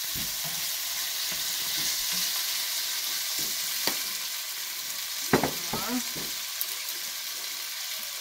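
Chopped tomatoes and onions sizzling steadily in hot oil in a pan, stirred with a wooden spoon at first, with a couple of sharp knocks, the loudest a little past halfway.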